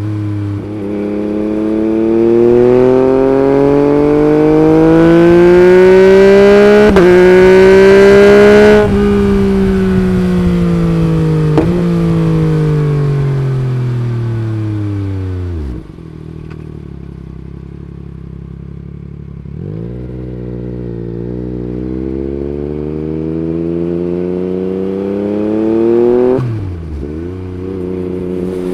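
Yamaha MT-09 gen 3's 890 cc inline three-cylinder engine, heard through its Akrapovič Racing Line carbon exhaust, pulling hard with its pitch climbing. The note breaks briefly about seven seconds in at a quick-shifted gear change, then falls away as the bike slows. It runs low and steady for a few seconds, pulls up again, and backs off near the end.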